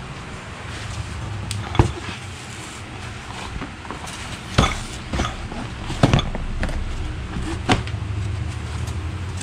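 A cardboard box being handled and opened: four sharp knocks and thumps of the cardboard lid and flaps, spaced a second or two apart, over a steady low hum.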